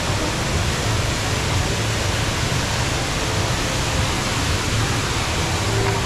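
Tall indoor waterfall, Jewel Changi's Rain Vortex, pouring from an opening in a glass dome into a pool below: a steady, even rush of falling water.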